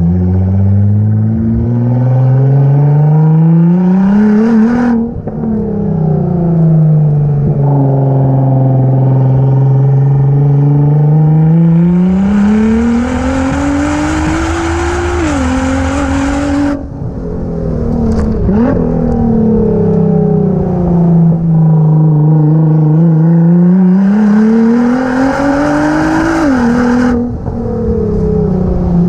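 Nissan GT-R R35's twin-turbo V6 through a Y-pipe and Milltek cat-back exhaust, idling and revved. Three slow climbs in pitch each drop away suddenly as the throttle is released, about 5, 15 and 27 seconds in, with a quick short blip near 18 seconds.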